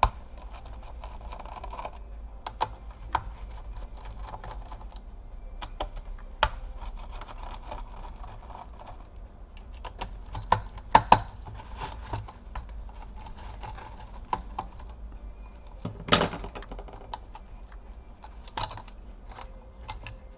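Screwdriver work on a laptop motherboard's cooler screws: scattered light clicks and taps of the tool and small metal parts being handled, with a few sharper knocks, the loudest about 11 and 16 seconds in.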